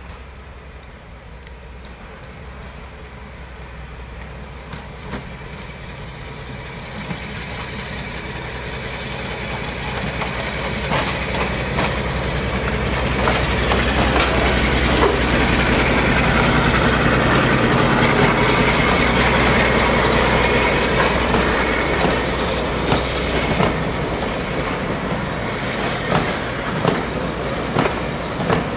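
Class 52 'Western' diesel-hydraulic locomotive D1062, with twin Maybach V12 diesel engines, running at low speed as it approaches and passes. Its low engine drone grows louder to a peak about halfway through and then eases a little as the coaches roll by, their wheels clicking over the rail joints.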